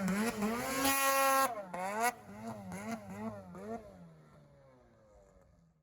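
Snowmobile engine revving up and down in quick repeated throttle blips, held high for a moment about a second in, then fading as it pulls away, and cutting off abruptly at the end.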